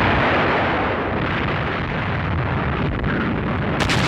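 Battle sound of artillery fire and explosions: a dense, continuous rumble of blasts, with a few sharper cracks near the end.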